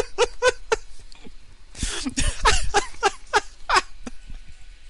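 A person laughing hard in quick repeated bursts, breaking off about a second in and then laughing again.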